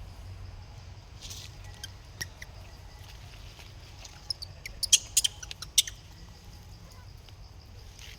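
Short, sharp high-pitched squeaks and clicks from a monkey, scattered, with a loud cluster of them about five seconds in, over a steady low rumble.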